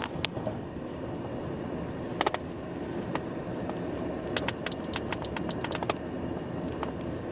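Vehicle moving slowly over a flood-damaged road, heard as a steady low rumble, with scattered sharp ticks and clicks, a pair about two seconds in and a quick cluster from about halfway on.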